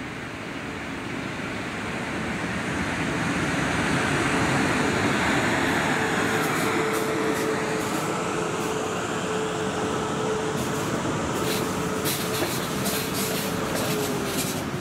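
South Western Railway Class 450 Desiro electric multiple unit approaching and running past along the platform. A rumble of wheels on rail grows louder over the first few seconds and then holds, with a steady whine that dips in pitch near the end. Sharp clicks join in the second half.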